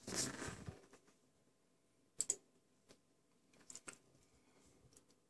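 A quiet room with a brief rustle at the start, then a few faint, sharp clicks in two pairs about a second and a half apart.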